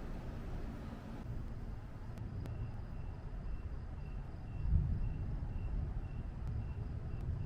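Low rumble of distant thunder, swelling about five seconds in. From about two and a half seconds in, a high chirp repeats steadily about three times a second.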